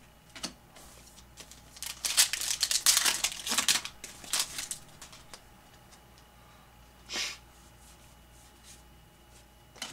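Trading cards and their packaging being handled: a tick, then a few seconds of crackly rustling and sliding as cards are moved through, and one more short rustle near the end.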